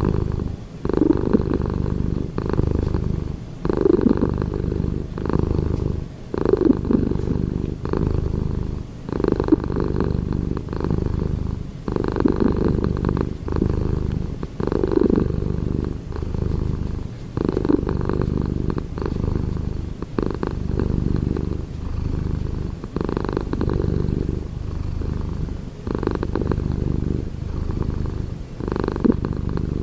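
A domestic cat's low rumbling breaths, rising and dipping in a steady rhythm of about one breath every two to three seconds.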